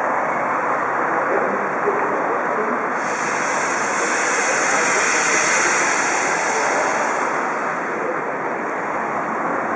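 DR class 52 steam locomotive 52 8080-5 venting steam with a steady hiss from around its cylinders. A brighter, higher hiss swells in about three seconds in and eases off about seven seconds in.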